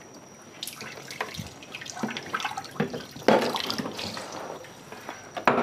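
Scattered clicks, knocks and rustles of a man moving about and settling into a desk chair, over a faint steady high whine.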